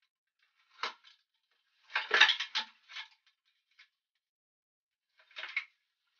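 Small hard parts clinking and knocking as they are handled, in a few short clusters, the busiest and loudest about two seconds in.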